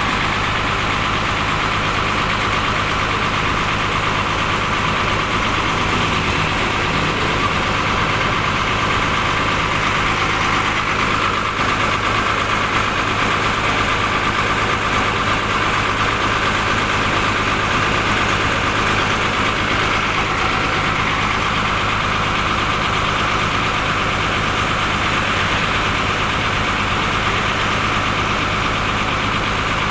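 A bus's rear-mounted diesel engine idling steadily with its engine bay open.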